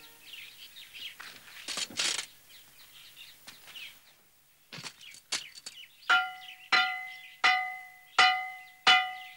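Metal pan beaten with a stick: a run of ringing clangs about every 0.7 s, starting about six seconds in after a few dry knocks. It is a warning that the old man takes to mean the wild dogs have come.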